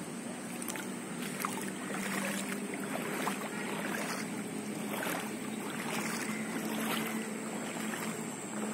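Steady outdoor background noise, a rushing hiss that swells softly about once a second, with a faint steady hum underneath.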